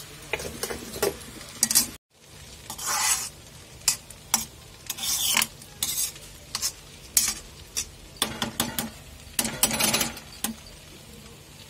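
Noodles sizzling in a hot steel kadhai while a slotted metal spoon stirs and tosses them, with repeated scrapes and clinks of metal on the pan. The sound cuts out completely for a moment about two seconds in.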